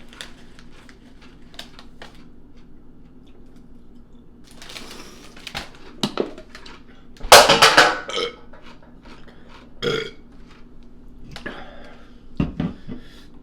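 A loud, drawn-out burp about seven seconds in, with a few small clicks and knocks around it.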